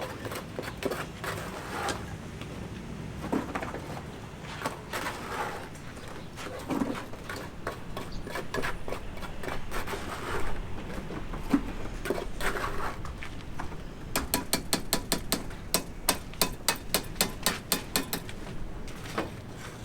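Hammer blows on a building site: scattered knocks at first, then a quick, even run of about four to five strikes a second near the end.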